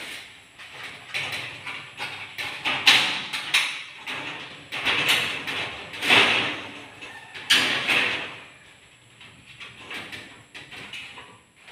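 Aluminium sliding window sashes with glass panes being slid back and forth along their track: a series of rolling, scraping strokes with sharp knocks as the sashes meet the frame. The strokes die down over the last few seconds.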